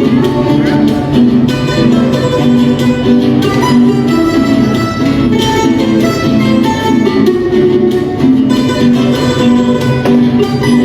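Live performance of Latin American folk music led by plucked string instruments, with guitar-like strumming and quick melodic notes.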